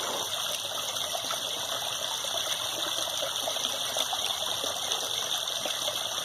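Steady trickle and splash of water running into a backyard koi pond.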